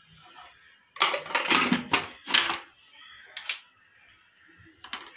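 Aluminium pressure cooker lid being put on and closed: a quick run of metal clacks and knocks about a second in, then a couple of single clicks later.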